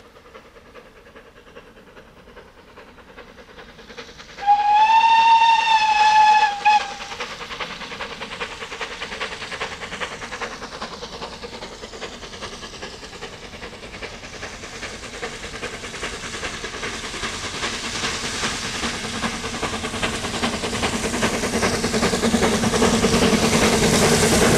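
BR Standard Class 9F 2-10-0 steam locomotive No. 92212 approaching. It gives one whistle blast of about two seconds, a few seconds in. Then its exhaust beats and the running noise of the train grow steadily louder as it nears.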